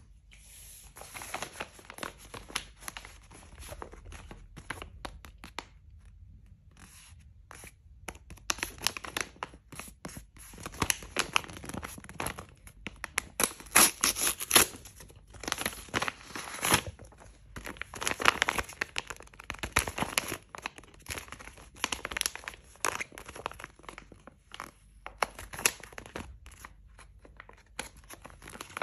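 Paper being torn and crinkled by hand as a homemade paper blind bag is ripped open, in irregular rasping tears with a short lull early on.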